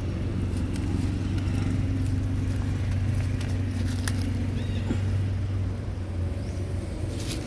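Steady low mechanical hum, with scattered dry crackles and clicks from the leaf litter.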